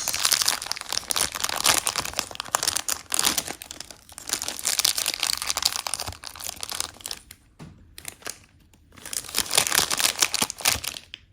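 Blind-box packaging being torn and crinkled open by hand: a dense crackle for about seven seconds, a short lull, then a second burst of crinkling near the end.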